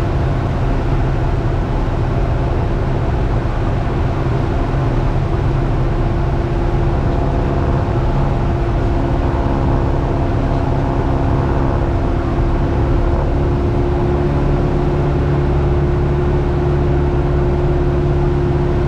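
Cessna 172's piston engine and propeller running steadily at climb power, heard inside the cabin as a loud, even drone.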